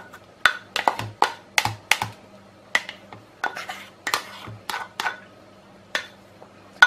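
A kitchen scraper knocking and scraping against a bowl while melted ice cream is scraped out: a run of sharp, irregular clicks, about two a second, some with a short ring.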